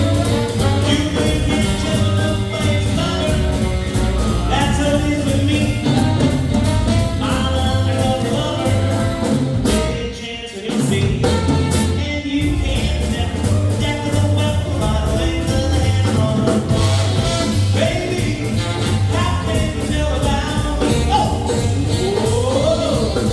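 Live band playing upbeat swing and early R&B dance music with a steady beat, with a brief break in the music about ten seconds in.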